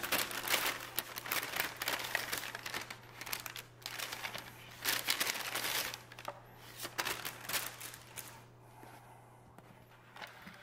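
Paper rustling and crinkling as hands handle a Traveler's Notebook and leaf through its pages, in irregular bursts that thin out near the end, over a faint steady low hum.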